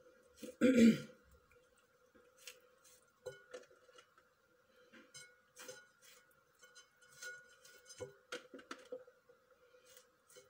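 A kitchen knife scoring slits into whole raw fish held over a ceramic plate: scattered small clicks, taps and scrapes of the blade on the fish and plate, with one brief louder sound about a second in and a faint steady hum underneath.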